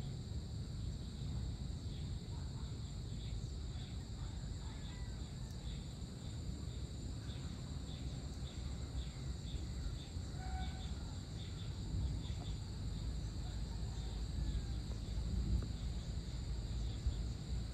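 Insects chirring steadily at a high pitch in the evening, over a low rumbling noise that grows a little louder toward the end, with a few faint bird chirps.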